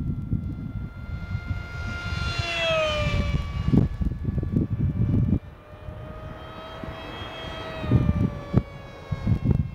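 ParkZone Stryker F-27Q RC flying wing's electric motor and propeller whining through high-speed passes. The pitch drops as it flies by, about two and a half seconds in and again about eight seconds in. Wind gusts buffet the microphone.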